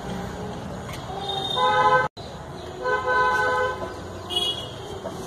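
A vehicle horn honks twice in the background, each honk a steady tone under a second long: the first about a second and a half in, the second about three seconds in. The sound cuts out for an instant between the two honks.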